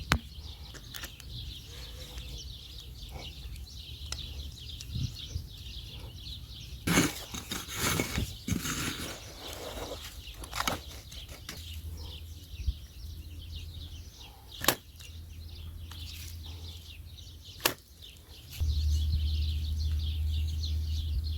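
Small birds chirping rapidly and continuously, with a loud rustling burst about seven seconds in and a few sharp clicks. A low steady hum sets in near the end.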